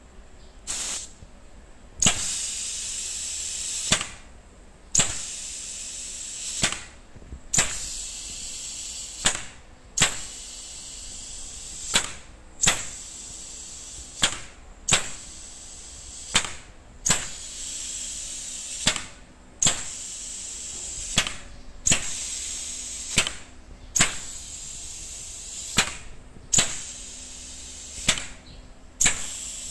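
Pneumatic actuator and solenoid valve on a butterfly valve being cycled open and shut over and over on a test rig. Each stroke is a sharp click and burst of compressed air, coming roughly once a second, and each burst trails off into a hiss of exhausting air.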